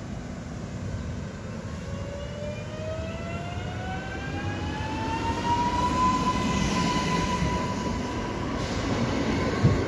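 Newag Impuls 36WEa electric multiple unit pulling away, its traction motor whine rising in pitch as it gathers speed and then levelling off, over a low rumble of wheels that grows louder. A couple of wheel thumps on the rails near the end.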